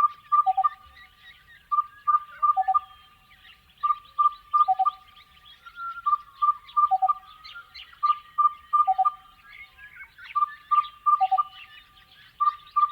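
Crested bellbird singing: about six repeated phrases, roughly one every two seconds, each made of a few ringing notes and ending in a deeper, cow-bell-like note. Fainter, higher chirping runs behind it.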